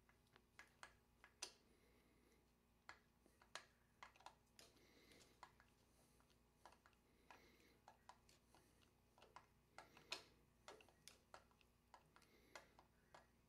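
Faint, irregular clicks and ticks of a screwdriver turning out the screws that hold a Columbia automatic drywall taper's head to its tube, with metal parts knocking lightly as they are handled.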